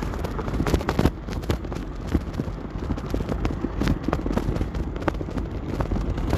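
Outdoor traffic noise: a steady low rumble with scattered clicks and knocks.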